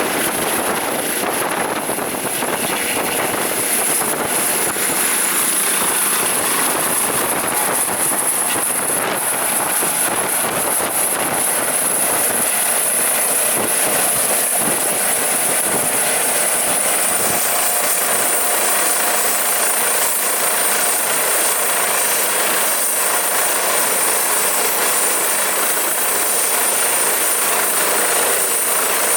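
Eurocopter EC155B1 helicopter with its twin turboshaft engines and rotors running, a steady loud rotor and turbine noise with a high turbine whine. About 17 seconds in the whine steps down slightly in pitch.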